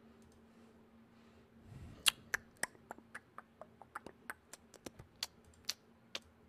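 Typing on a computer keyboard: irregular key clicks, about three or four a second, starting about two seconds in after a quiet stretch with a faint steady hum.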